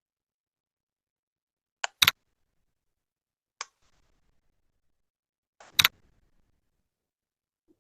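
A few short, sharp clicks against near silence: a light click followed at once by a louder double click about two seconds in, another light click a second and a half later, and a loud click near the end of the sixth second.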